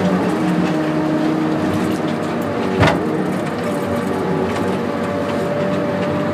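John Deere 909JH feller buncher running steadily under load, with a steady whine that jumps higher in pitch partway through. A single sharp bang just under three seconds in is the loudest thing heard.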